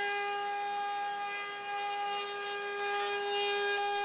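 Mafell FM1000 router motor running at speed in a router table with a steady high whine. Under it is the hiss of the bit cutting the edge of a wooden workpiece fed along the fence.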